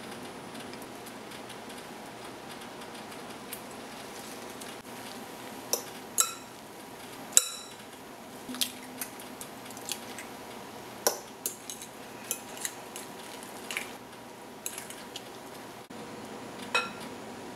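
Metal spoon clinking against a glass mixing bowl while stirring batter: a run of irregular sharp, ringing clinks that starts about six seconds in, over a steady faint hiss.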